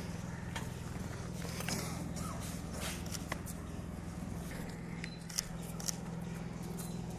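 Steady low electrical hum from the public-address system, with a few scattered sharp taps of cadets' boots on the ground as they walk to and from the award presentation.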